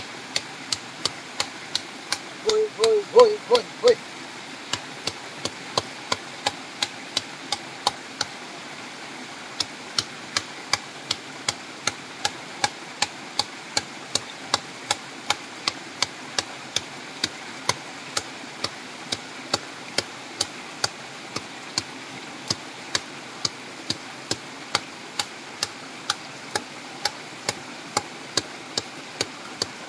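Wooden stick beating a bundle of poison-vine bark against a stream rock: a steady run of sharp knocks, about three a second, with a short break about eight seconds in. The bark is being crushed to release its fish-stunning sap.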